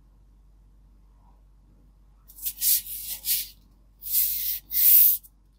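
Rustling, sliding handling noise of a book and its packaging being unboxed: a couple of near-silent seconds, then three short swishes, then two louder ones near the end.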